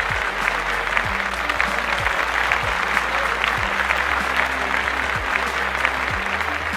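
Audience applauding steadily, many hands clapping at once, with a background music track playing underneath.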